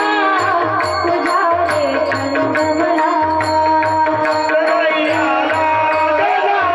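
Varkari kirtan devotional music: sustained held tones with a wavering melody line, low pakhawaj drum strokes, and small hand cymbals ticking at a steady beat.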